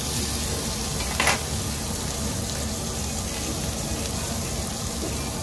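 Meat sizzling steadily on a tabletop Korean barbecue grill pan, with a short knock about a second in.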